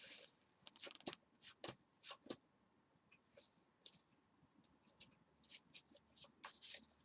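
Faint, irregular clicks and light scrapes of trading cards being handled.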